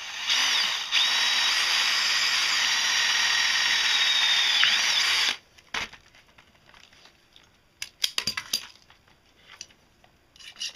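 Cordless drill running for about five seconds, its bit boring through a copper strip, then stopping abruptly. A few small clicks follow, and near the end a file starts rasping back and forth across the metal.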